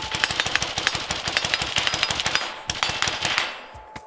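Rifle Dynamics RD-74 Quick Hatch AK in 5.45×39mm firing a long, rapid string of shots, about ten a second. It breaks off briefly a little past two seconds in, fires a shorter second burst, then stops, the echo dying away near the end.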